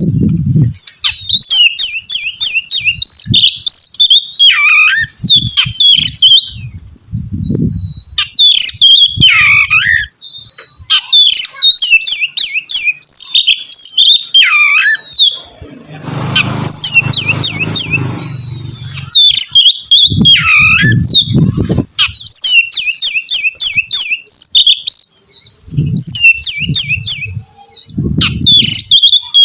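Oriental magpie-robin (kacer) singing loudly in repeated phrases of rapid high chirps and trills, some ending in a downward slurred whistle, with short pauses between phrases. Occasional low thumps sound underneath.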